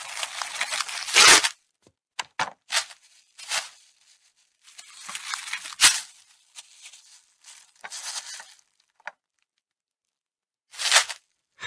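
Plastic wrap being pulled off the roll and stretched over a plate: a loud crackling tear for about the first second and a half, then shorter crinkling rasps, with a sharp knock about six seconds in and one more brief rasp near the end.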